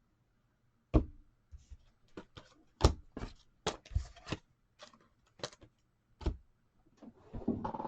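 Trading cards and their box being handled on a table: scattered light clicks and taps with a few duller knocks, irregular and spaced out, as cards are shuffled, set down and flipped.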